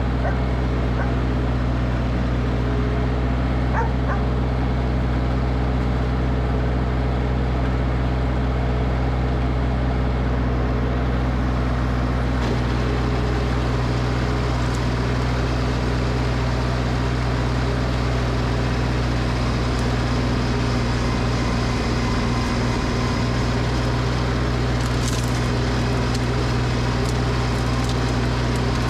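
Small engine running steadily at a constant speed, with no revving.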